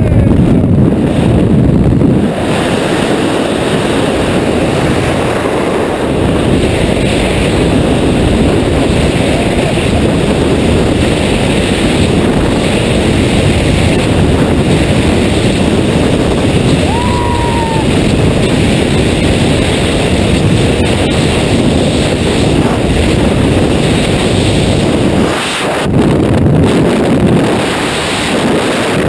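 Wind rushing over a helmet-mounted camera's microphone in skydiving freefall: a loud, steady roar of noise. It is heavier and deeper for the first couple of seconds, at the exit from the aircraft.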